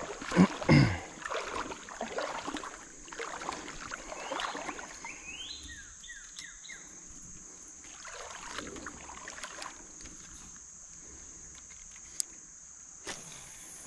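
Water splashing and sloshing in a shallow creek, loudest in the first second and then dying down to occasional softer sloshes, over a steady high-pitched buzz. A few short falling chirps come about five seconds in.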